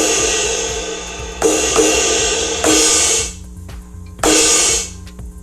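Electronic drum kit cymbal sample struck about five times through a loudspeaker, each crash ringing briefly and then cut off abruptly: the choke effect, the cymbal pad grabbed to stop the ring.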